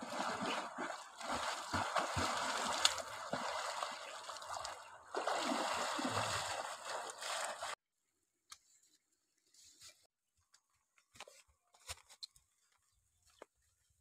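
River water splashing and sloshing close by as a person swims through it, with dull low knocks from the strokes. About two-thirds of the way through it cuts off abruptly to near silence, broken only by a few faint clicks.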